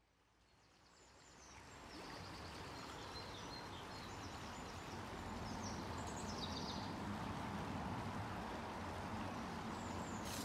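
Outdoor nature ambience fading in over the first two seconds: a steady rushing hiss with small birds chirping in short, high calls.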